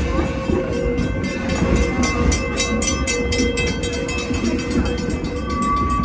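1873 Torch Lake steam locomotive working under way, its exhaust chuffing in a quick, even rhythm over the rumble of the train on the rails. A steady high tone joins near the end.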